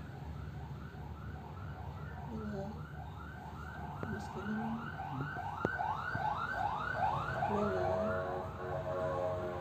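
Emergency vehicle siren in a fast yelp, rising and falling about two to three times a second, growing louder toward the end.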